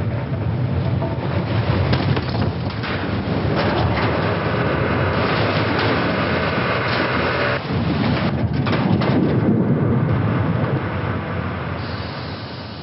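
Sound-designed ship-sinking effect: a loud, dense rumble with rushing noise and scattered cracks, fading out near the end.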